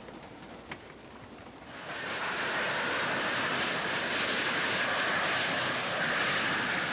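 Steam express train running along the line, a steady rushing rumble that comes up quickly about two seconds in and then holds even.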